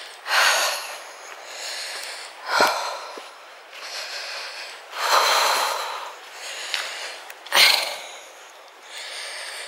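A woman breathing hard from climbing uphill, with four loud puffs of breath about two and a half seconds apart.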